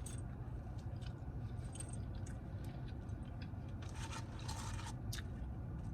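Quiet chewing and mouth sounds of someone eating a burger: scattered small clicks and wet smacks, with a soft rustle about four seconds in, over a low steady hum.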